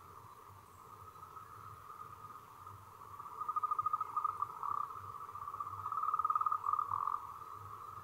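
A steady chorus of calling wild animals in a high, narrow pitch band. Louder, rapid pulsed trills rise out of it twice, about three seconds in and again about six seconds in.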